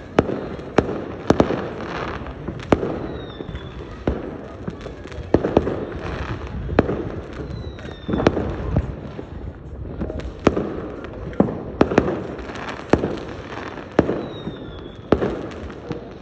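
Fireworks going off in quick succession: sharp bangs about every half second to a second, with crackling between them and a few short falling whistles.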